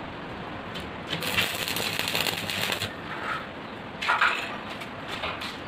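Arc welding on a square steel-tube gate frame: the arc crackles and sizzles for just under two seconds about a second in, then gives a shorter burst around four seconds, as joints in the frame are tacked.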